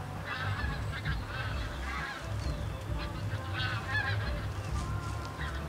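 A flock of geese honking, with irregular clusters of calls, over the low steady rumble of idling car engines.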